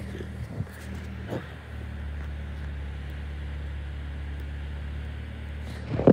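Car engine idling steadily, a low even hum, with a few faint clicks and a loud knock right at the end.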